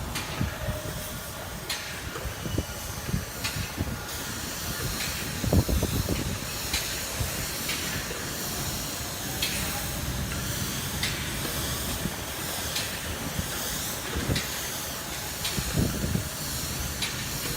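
Spray gun hissing steadily as a polyurethane roofing system is sprayed, over an irregular low rumble.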